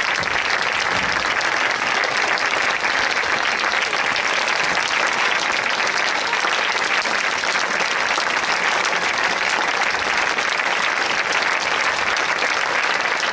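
Concert audience applauding, a steady, dense clapping that holds at the same level throughout.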